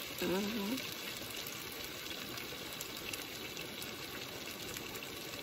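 Steady crackling hiss of a steak sizzling in a frying pan, blended with rain pattering on the SUV's roof.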